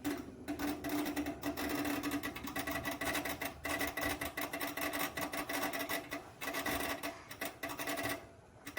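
A small motor running with a steady hum and a fast, rattling clicking, cutting off shortly before the end.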